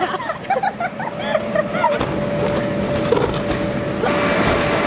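Steady drone of an inflatable bounce house's air blower, carrying a constant hum tone, with children's voices calling out briefly in the first two seconds.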